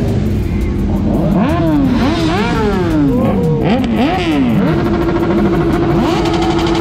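Motorcycle engines revving hard: a quick run of overlapping blips, the revs rising and falling several times, then one engine holding a steady high rev for the last couple of seconds.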